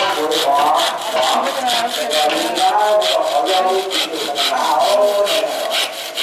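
Hand sawing or rasping of wood or bamboo: fast, even back-and-forth strokes, about five a second, with a squealing pitch that rises and falls with each stroke.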